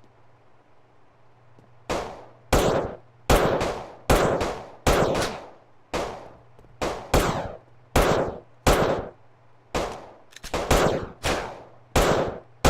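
A run of sharp bangs, about two seconds in, coming one to two a second, each with a long echoing tail.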